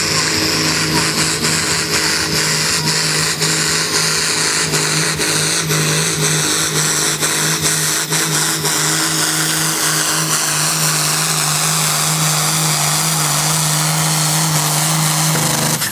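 A pulling tractor's engine runs flat out under load, dragging a weight sled, with a steady heavy note and a high whine that slowly falls in pitch. The engine note drops away near the end as the run stops.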